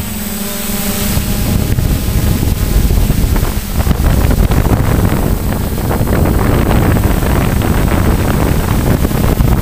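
A model aircraft's motors and propellers humming steadily in flight, recorded by its onboard camera, with heavy wind rushing over the microphone.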